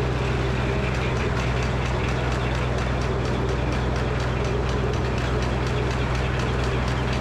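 Frick circular sawmill running: a steady low mechanical drone with a fast, regular ticking over it.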